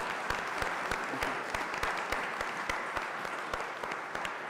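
A congregation applauding: many people clapping steadily, easing off slightly near the end.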